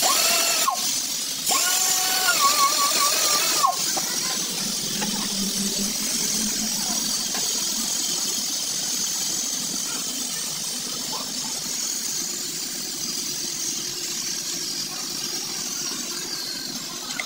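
Pneumatic tyre buffer with an abrasive stone whining against the rubber inner liner of a tubeless tyre, in short runs with several wavering tones that cut off sharply during the first few seconds. A steady hiss follows.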